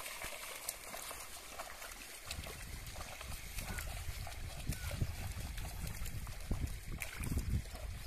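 Water sloshing and trickling as a pair of bullocks and a wooden plough churn through a flooded paddy field. Wind rumbles on the microphone from about two seconds in.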